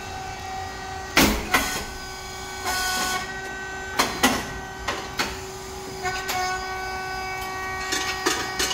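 SYP9502 rice cake machine running: a steady hum from its motor and hydraulic pump, broken by several sharp knocks, a brief hiss about three seconds in, and a cluster of clicks near the end as the moulds cycle.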